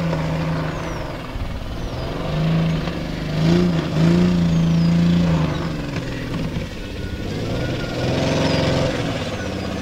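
Ford Explorer's engine revving up and down in waves as the truck drives off-road through a grassy field, loudest about four seconds in and climbing again near the end.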